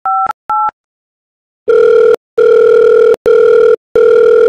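Telephone keypad tones as a number is dialled, two short two-pitch beeps, then a silence of about a second. Then a loud, steady ringback tone starts, broken by three brief gaps, as the call rings out.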